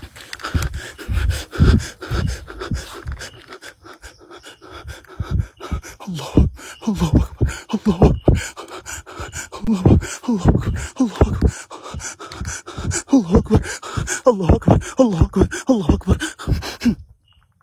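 A person panting hard, each breath a short voiced grunt falling in pitch, coming several a second in the second half, over rustling and handling knocks. It cuts off suddenly near the end.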